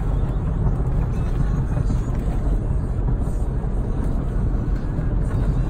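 Car fitted with a Borla aftermarket exhaust cruising at a steady speed, heard from inside the cabin: a steady low rumble with no revving.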